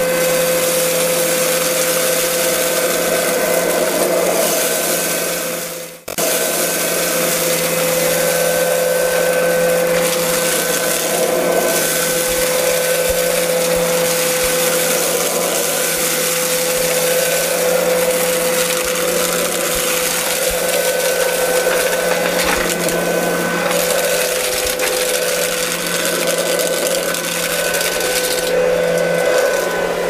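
Comfyer 22.2V cordless stick vacuum running on high power, a steady motor whine, as its floor head sucks up dirt, sand and small rocks from a concrete floor. The sound drops away for a moment about six seconds in, then comes back.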